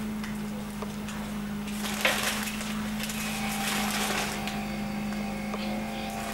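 Newspaper being handled and rustling, with a sharp crackle about two seconds in, over a steady low hum.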